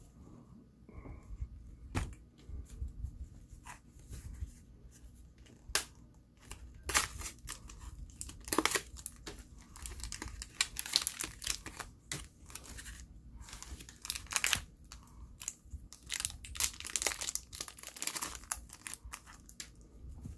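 A Bakugan trading-card booster pack's wrapper being torn open by hand. It crinkles and rips in irregular bursts: only a few scattered crackles at first, then dense, loud tearing through the second half.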